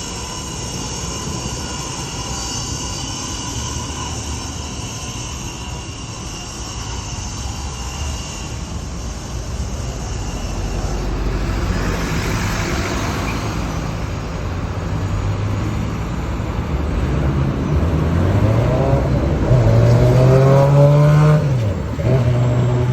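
LVS-86K tram running, with steady high tones that fade over the first several seconds. In the second half its traction motors whine and climb in pitch as it accelerates, then the pitch drops sharply near the end.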